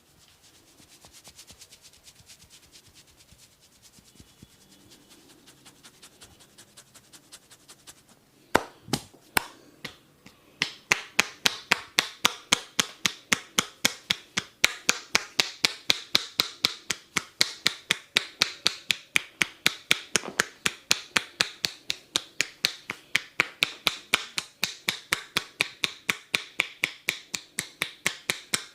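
A barber's hands striking skin in a fast, even percussive massage, about four sharp slaps a second, beginning about ten seconds in after three single strikes. Before that, only faint quick tapping.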